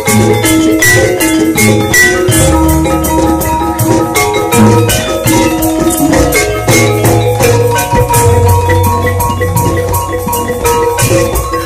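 Javanese gamelan ensemble playing: thick bronze saron metallophones struck hard in a quick steady beat of ringing notes, over deep low tones and drum strokes.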